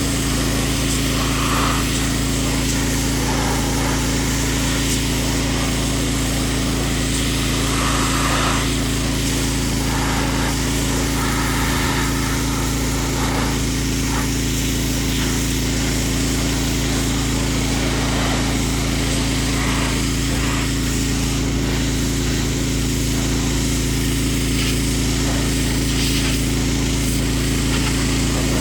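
Pressure washer's small engine running steadily, with a continuous hiss of spray from the wand.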